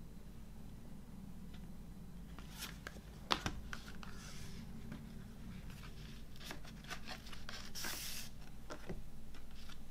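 Hands handling a cardboard CD digipak: scattered taps and clicks of card as the panels are opened and laid flat, with short rustles and a sliding scrape as a folded paper insert is pulled out and unfolded. The loudest sound is a sharp tap about a third of the way in. A faint steady low hum runs underneath.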